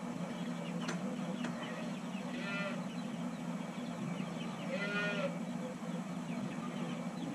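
Calves bawling twice, short high-pitched calls a few seconds apart, over a steady low hum.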